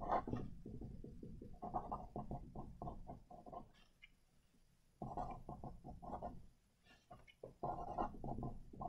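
Felt-tip marker writing on paper: bursts of quick scratchy strokes, with short pauses about four seconds and seven seconds in.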